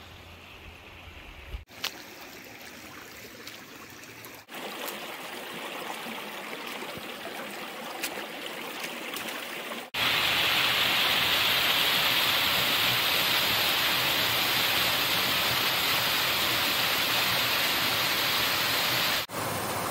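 Water of a small woodland stream running over stones. About halfway through it gives way to the much louder, steady rush of a small waterfall pouring down a rock face into a pool.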